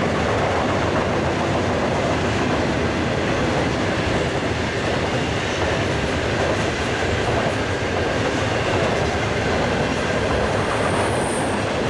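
Freight train cars rolling past: a steady rumble and rattle of steel wheels on the rails.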